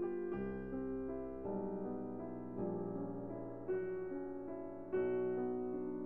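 Gentle background piano music, a slow run of notes and chords that move on about once a second.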